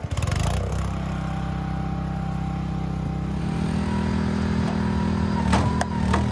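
Engine of a firewood processing machine running steadily, with a few sharp knocks about five and a half to six seconds in.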